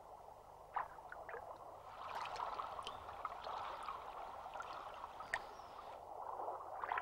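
Water gurgling and lapping with scattered small clicks and splashes, growing louder about two seconds in.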